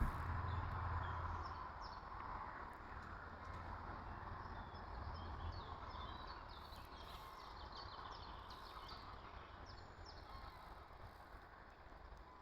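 Small birds chirping in short high calls over a steady low outdoor rumble, the calls thickest in the middle.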